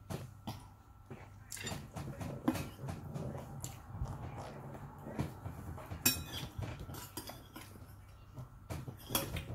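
Close-up eating sounds: chewing and handling of food, with a metal spoon clinking against the plate and a ceramic bowl a few times.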